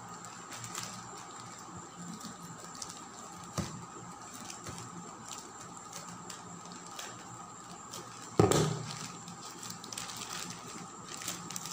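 Scissors snipping through a plastic courier mailer bag, with light crinkling and ticks of the plastic being handled. About eight seconds in there is a single loud knock.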